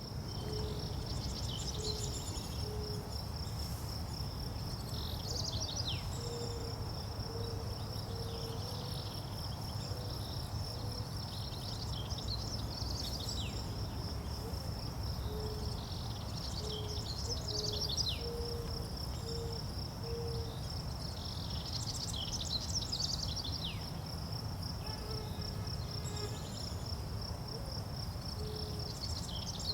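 Outdoor nature ambience: an insect trills steadily on one high, pulsing note while songbirds sing short chirpy phrases every few seconds. A lower note repeats in short runs of several at a time, over a low rumble.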